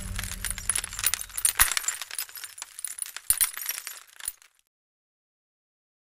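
A dense run of sharp clicks and crackles, with a few louder single strikes, over the tail of fading music. It thins out and stops about four and a half seconds in.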